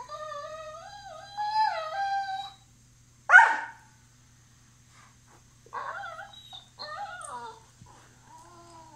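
Dogs play-wrestling and vocalising: long whining cries that bend up and down in pitch, one short, sharp yelp about three seconds in that is the loudest sound, then a few shorter whines and moans.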